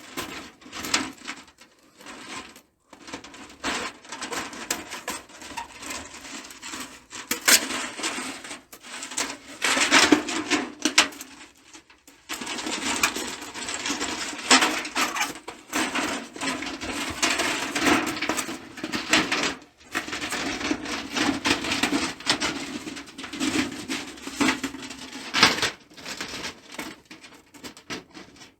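Thin titanium camp-stove parts being handled, clinking and rattling against each other in an irregular clatter, with brief pauses.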